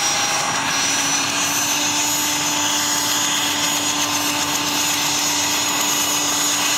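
Mi-8 helicopter's turboshaft engines and main rotor running on the ground: a steady turbine whine over a broad rushing noise, its pitch edging up slightly in the first second or two.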